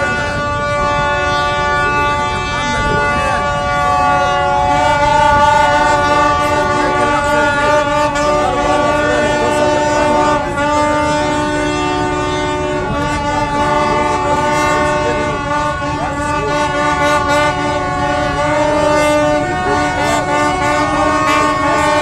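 Several ships' horns sounding at once at different pitches, held long and overlapping, with some stopping and starting again: celebratory horn blasts as the blocked canal reopens.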